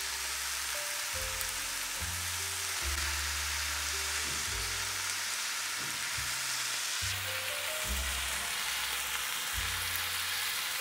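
Chicken pieces and diced vegetables sizzling steadily in a frying pan with soy sauce just added, over soft background music with slow low notes.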